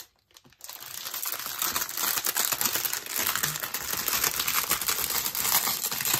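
Plastic packets of diamond-painting drills crinkling and rustling as they are handled and pressed flat, a dense crackle that starts about half a second in after a brief silent gap.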